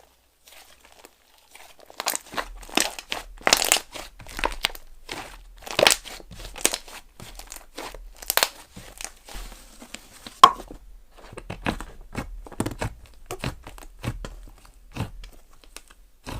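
Slime being pressed, stretched and folded by hand, giving irregular crackling and small popping clicks, with one sharper pop about ten seconds in.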